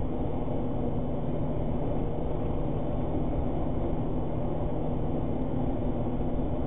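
Steady engine and road noise of a cash-in-transit vehicle cruising at about 90 km/h, heard inside its cab as an even low drone.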